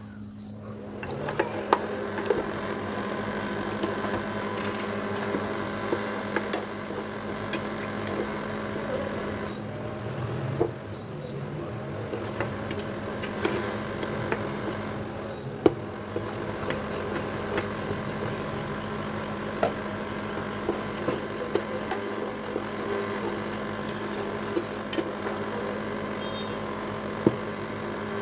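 A steady mechanical hum that starts about a second in, with many scattered sharp clicks and light knocks over it.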